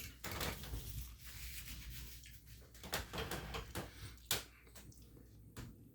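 Close-up chewing and mouth sounds of a man eating a fried chicken wing: irregular wet smacks and clicks, with the sharpest ones at the start, about three seconds in and just past four seconds.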